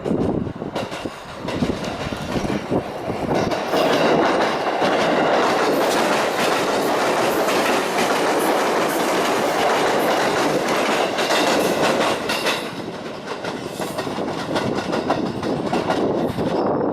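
JR Mito Line electric train passing, its wheels clicking over the rail joints. The rush is loudest for several seconds in the middle and eases a little near the end.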